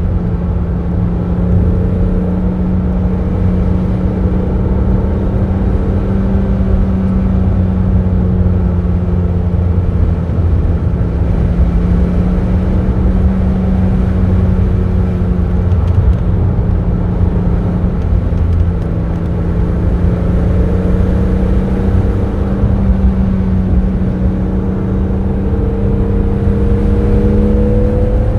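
BMW Z3 M Roadster's 3.2-litre naturally aspirated inline-six running at steady revs under way, heard from the driver's seat over road rumble. The engine note holds level for most of the time, then climbs gradually near the end as the revs rise.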